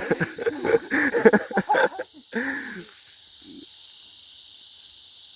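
Steady, high-pitched chorus of insects. Voices talk over it for the first three seconds.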